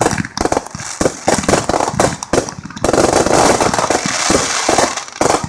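Fireworks and firecrackers going off in rapid succession: many sharp bangs and pops, thickening into a dense continuous crackle from about three seconds in.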